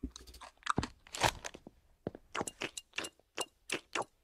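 Crunchy snack food being chewed in a cartoon soundtrack: sharp crunches in the first second and a half, then a quick, regular run of clicks at about four a second.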